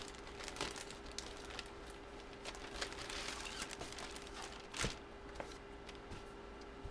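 Quiet handling of plastic packaging: scattered crinkles and light taps, with one louder rustle about five seconds in.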